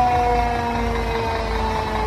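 Several fire engine sirens sounding together at different pitches, all sliding slowly down in pitch.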